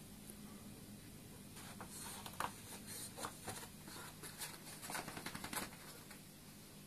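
Dogue de Bordeaux puppy's paws and claws scratching and rustling on the floor and a floor mat as it walks about, a run of faint short clicks bunched in the middle seconds.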